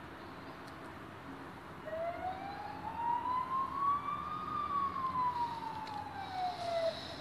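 A siren sounding one slow wail: its pitch rises for about two and a half seconds from about two seconds in, then falls away again, over a steady background hiss.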